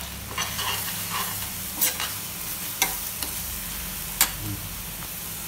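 Steel spoon stirring and scraping masala in a stainless steel frying pan, with a few sharp metal-on-metal clinks over a steady sizzle. The freshly added spice powders are frying in oil that has separated from the onion-tomato base.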